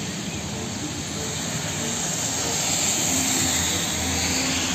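Hino fuel tanker truck driving past on a rain-soaked road: a steady engine hum with tyres hissing on wet asphalt and rain falling, growing a little louder about three seconds in as the truck comes closest.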